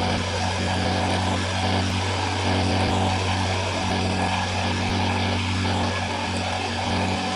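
Heavy diesel engine running steadily, a constant low drone with a broad mechanical noise over it.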